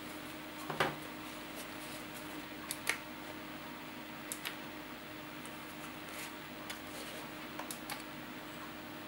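Scattered plastic clicks and knocks from handling a Parkside 20 V cordless circular saw: the battery pushed in, the saw lifted and turned, and its lower blade guard swung back. The motor is not running; a faint steady hum lies underneath.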